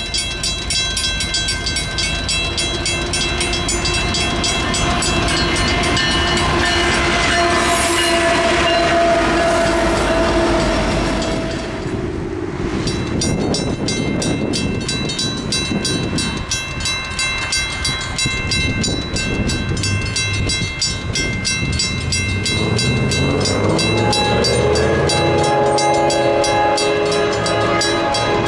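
Mechanical railroad crossing bells ringing with fast, steady strokes at an active grade crossing. A train horn sounds in the first part and drops in pitch, and the sound cuts to a second crossing bell about twelve seconds in. Another rising tone comes in near the end.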